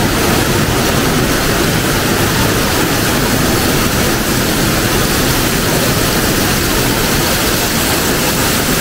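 Waterfall's falling water up close: a loud, steady rush of white water.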